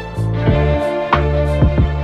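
Background music: sustained bass and held notes under a recurring beat.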